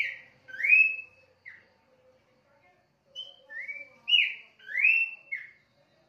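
Caged Horsfield's babbler (pelanduk semak) singing clear whistled notes that slide up and down. They come in two phrases: three notes at the start, then a longer run of five or six notes from about three seconds in.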